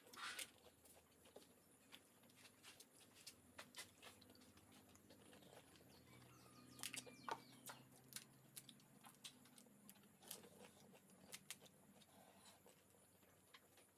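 Faint eating sounds of pani puri: scattered small crunches and mouth clicks from chewing the crisp shells.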